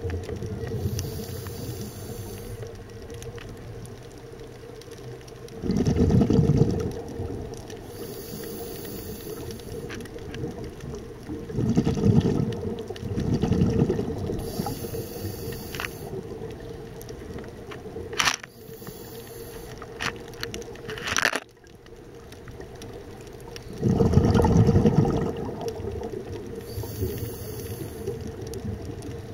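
Underwater sound of a scuba diver breathing through a regulator. A hiss comes with each breath in and a rumble of exhaust bubbles with each breath out, in a slow cycle every several seconds.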